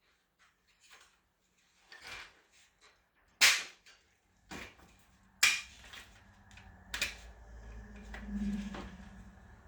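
Plastic trim clips snapping loose as a chrome strip is pried off a roof rail: three sharp snaps with smaller clicks between. A low rumble swells and fades near the end.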